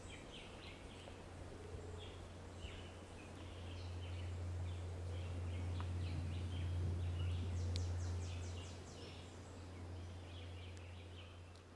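Tropical forest ambience: small birds calling over and over in short high notes, with a fast trill a little past the middle. Under them a steady low rumble swells and fades through the middle.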